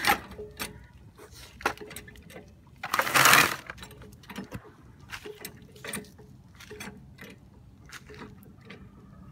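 Car jack being worked to raise the car a little higher: irregular metallic clinks and knocks, with a loud scraping rustle about three seconds in.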